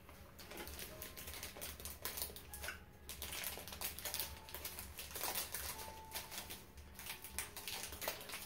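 Plastic candy wrappers crinkling as they are handled and torn open: a rapid, irregular run of small crackles.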